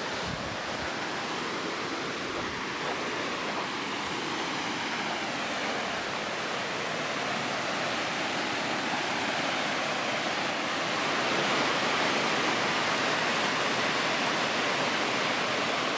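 Waterfall on a river, whitewater rushing steadily over rock, growing slightly louder about two-thirds of the way through.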